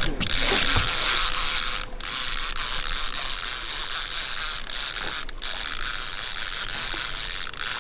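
Conventional trolling reel ratcheting steadily as its handle is cranked, winding in line against a hooked fish. The clicking breaks off briefly near 2 seconds and again near 5 seconds.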